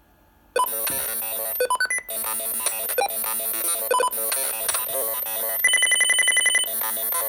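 Arduino smart speaker in its vocabulary test mode playing its stored alert sounds: a ringtone-like run of short electronic tones starting about half a second in, then a fast, even string of beeps for about a second near the end.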